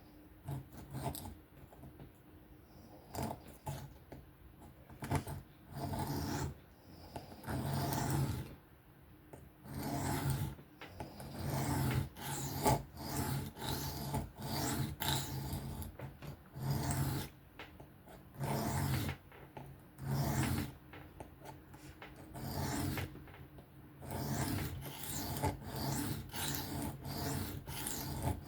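Knife blade being stroked freehand across an Atoma diamond sharpening plate: a series of gritty scraping passes, roughly one every second or two, with short pauses between runs of strokes.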